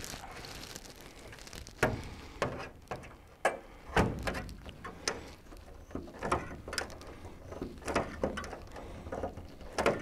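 Hand rivet squeezer pulling rivets through an aluminium wing rib and angle bracket: a series of irregular sharp clicks and metallic knocks as the tool is worked and shifted against the aluminium.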